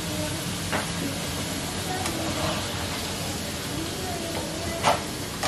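Kitchenware clinking and knocking a few times while food is dished up, the loudest knock about five seconds in, over a steady hiss.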